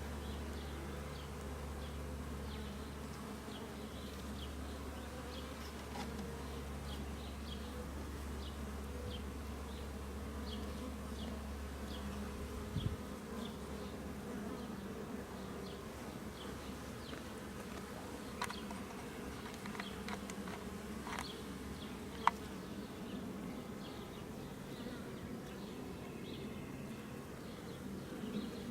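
Honey bees buzzing steadily around an open hive during a frame inspection, with a few sharp clicks about two-thirds of the way through.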